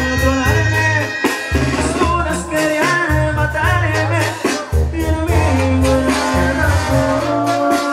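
Loud dance music with a singer over a bass line and a steady drum beat.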